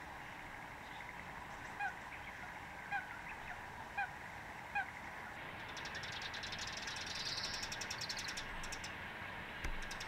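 Four short, pitched bird calls about a second apart. Then, from about five seconds in, a busy chatter of rapid high chirps from Eurasian tree sparrows. A brief low thump comes near the end.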